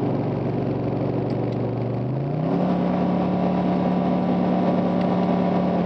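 The 5.6-litre V8 of a 2008 Nissan Titan, heard from inside the cab, runs steadily, then about two seconds in its revs climb quickly from under 3,000 to over 4,000 rpm and hold there. This is a manual-mode downshift to second gear in the RE5R05A five-speed automatic with the throttle lightly held, the flare the owner is testing for a rev-match.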